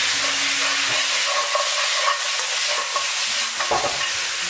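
Pig trotters and whole spices sizzling in a hot wok as they are stir-fried with a spatula, with a few sharp knocks of the spatula against the wok. The spices are being fried until fragrant.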